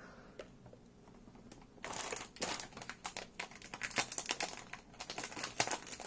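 Keyboard packaging crinkling as it is handled, a dense run of irregular crackles starting about two seconds in.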